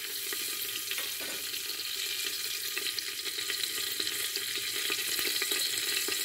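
Hot oil sizzling steadily with fine crackles as a tempering of cumin seeds, dry curry leaves and dried red chili fries in a pressure cooker.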